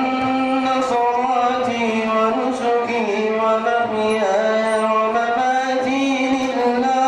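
A young male voice chanting Quranic recitation in a melodic style, amplified through microphones. It holds long, drawn-out notes ornamented with slow slides in pitch.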